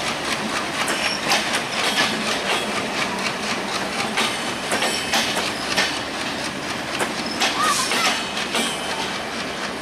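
Bangladesh Railway intercity passenger coaches rolling past on broad-gauge track, their wheels clattering over the rail joints in a steady run of clicks.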